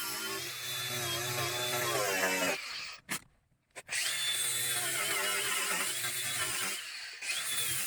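Handheld electric power tool running under load on the steel bracket, in three spells: it stops about two and a half seconds in, starts again a second later, and dips briefly near seven seconds.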